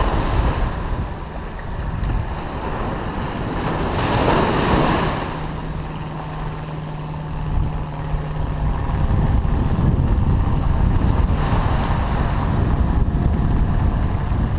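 Small waves breaking and washing up a sandy beach, with wind buffeting the microphone; one wash swells up about four seconds in.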